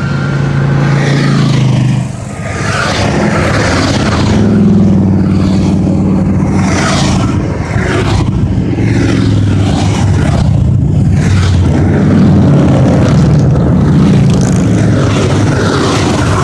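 Engines of a column of large touring motorcycles, led by police motorcycles, running loudly as the column approaches along the road.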